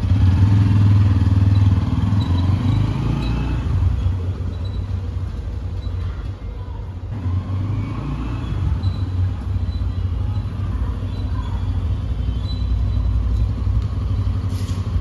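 A motorcycle engine idling with a steady, fast pulse.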